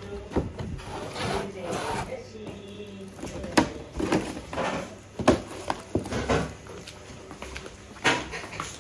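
Scattered knocks, taps and rustles of household things being handled and set down, with faint voices in the background.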